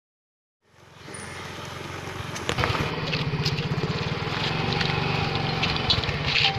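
Small motor scooter engine running as it rides along a rough dirt track, a steady fast putter with scattered clicks and rattles. It fades in about a second in after a moment of silence.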